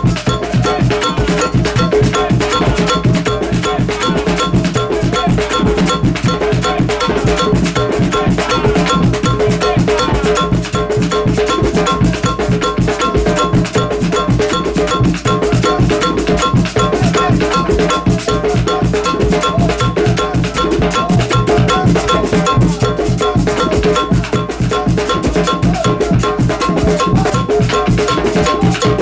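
Afro-Venezuelan style group drumming: hand drums slapped, a log drum played by hand and a drum beaten with sticks, locked in a steady, fast rhythm. A ringing metallic tick repeats on the beat.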